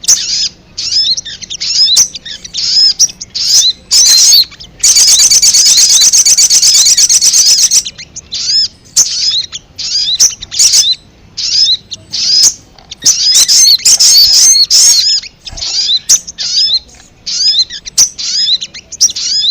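Little spiderhunter (sogok ontong) chicks calling in a steady series of high, sharp chirps, broken from about five seconds in by a fast, even trill lasting about three seconds.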